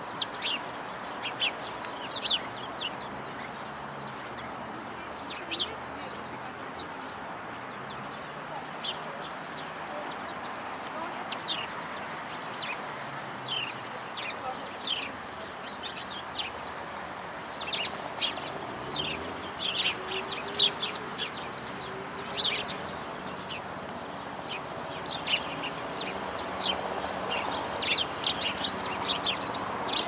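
House sparrows chirping, short falling cheeps that come sparsely at first and then thick and fast from about halfway through, over a steady hum of city noise.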